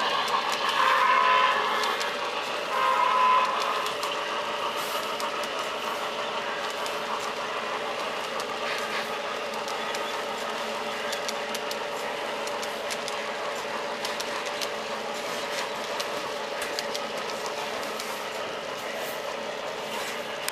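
Model freight train rolling along the layout track: a steady running rumble of the cars' wheels, dotted with fine clicks. Two brief louder tones sound about one and three seconds in.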